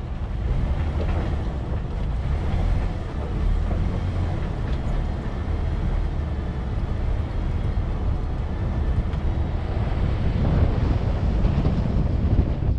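Four-wheel-drive vehicle driving along a dirt trail: a steady low rumble of engine and tyres, with wind buffeting the microphone.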